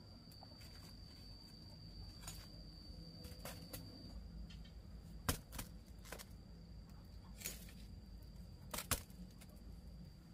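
Quiet outdoor ambience: a steady faint high tone over a low hum, with scattered sharp clicks and knocks, the loudest about five seconds in and a pair near nine seconds.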